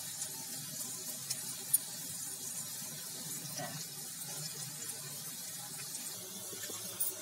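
Onion pakodas deep-frying in hot mustard oil in a steel kadhai: a steady sizzle with small crackles, and light clinks of steel tongs against the pan, one sharper clink about two seconds in.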